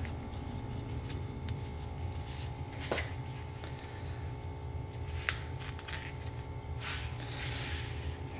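Gloved hands handling the opened starter solenoid: a few light metal clicks and taps, sharpest about three seconds in and again about five seconds in, with a soft rustle near the end, over a steady low hum.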